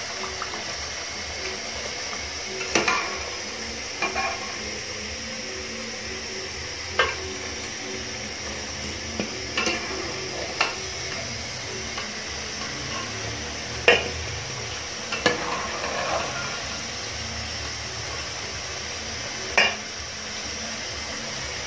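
Potato slices deep-frying in oil in an aluminium pot, a steady sizzle, with sharp clinks of a metal spoon against the pot every few seconds as the fried slices are scooped out.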